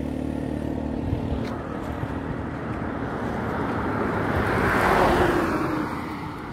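Road traffic: an engine hum that fades over the first few seconds, then a vehicle passing close by, its noise rising to a peak about five seconds in and dying away.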